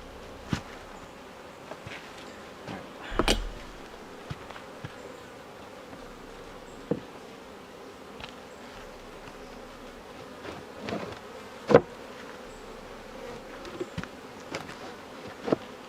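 Honeybees buzzing steadily around an opened hive, with a handful of sharp knocks and clicks from the hive being worked open. The loudest knocks come about three seconds in and about twelve seconds in.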